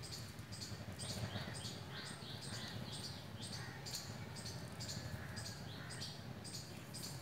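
Bird chirping: short, sharp, high-pitched calls repeating about twice a second, a few with a falling pitch, over a low steady rumble.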